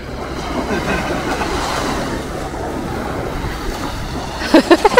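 Small waves breaking and washing up the shore in a steady rush of surf. Near the end, a child's voice gives a few short, high shouts, the loudest sounds here.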